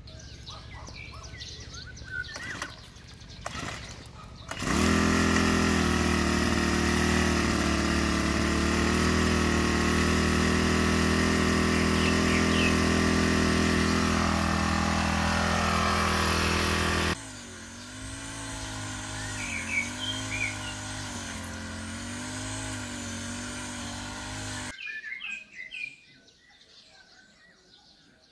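A backpack brush cutter's small petrol engine catches about five seconds in and runs loud and steady. After a sudden drop in level it sounds farther off, its pitch wavering up and down, then cuts out near the end, leaving birds chirping.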